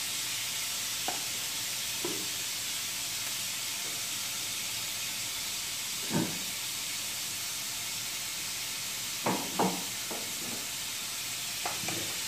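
Chicken frying in a wok over a gas burner, with a steady sizzle. A few brief light knocks come through it, the loudest about six seconds in and a pair just after nine seconds.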